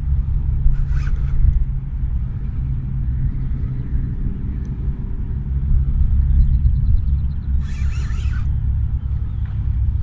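Wind buffeting the microphone as a loud, irregular low rumble, with two brief hissing rustles about a second in and near the eight-second mark.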